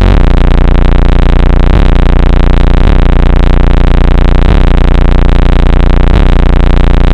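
Car audio subwoofers from Sundown Audio playing a steady, very loud low bass tone, with brief dips every second or so, loud enough to overload the microphone.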